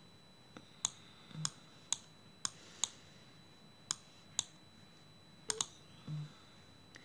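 Sharp, isolated clicks, about ten at irregular spacing, from taps and clicks made while operating the device to scroll a song list and select a track.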